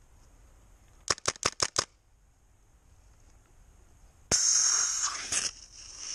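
Gas airsoft rifle fired six times in quick succession, then a loud sudden hiss of gas about four seconds in that tapers off: excess gas being dumped from the gun so it can be reloaded.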